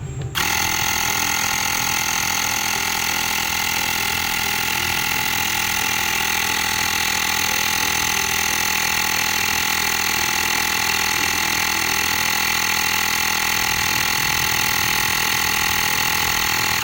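Xiaomi portable electric air compressor running steadily with a high, multi-tone motor and pump whine, pumping up a car tyre from 31 toward a 32 psi target. It starts suddenly just after the start and cuts off abruptly at the end.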